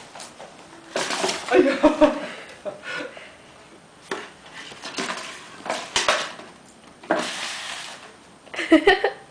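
Cardboard graham cracker box knocking, rustling and scraping on a hardwood floor as a kitten scrambles into it and pushes it along, in a string of short, uneven bursts with one longer scrape near the end.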